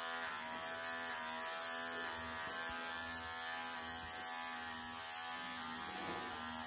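Wahl electric pet clippers running steadily with a buzzing hum as they cut through a Siberian forest cat's matted, pelted coat, the loudness swelling and fading slightly as the blade is worked along.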